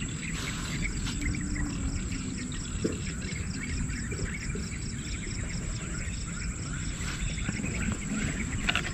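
A high-pitched chirp repeated evenly about five times a second for several seconds, over a low steady haze of outdoor ambience and handling noise.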